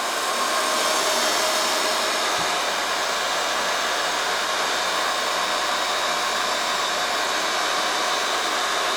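Ceiling fan running fast, a steady loud whir of blade air and motor that swells slightly in the first second and then holds even.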